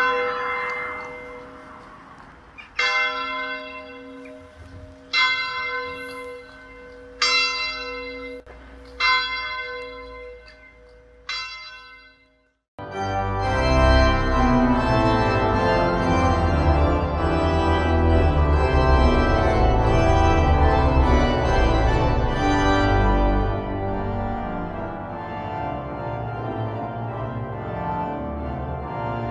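A single church bell tolling, six strikes about two seconds apart, each leaving a long humming ring. About twelve seconds in it cuts off suddenly and, after a brief silence, louder organ music begins with full sustained chords.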